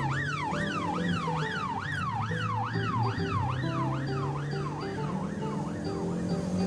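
Police car siren in a fast yelp, its pitch sweeping up and down nearly three times a second, over background music; the siren fades out near the end.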